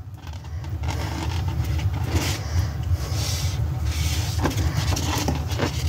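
Inflated latex balloons being handled, rubbing and bumping against each other as a balloon's neck is pushed into a plastic balloon clip: a steady low rumble with scattered rubbing and scraping sounds and a few light clicks near the end.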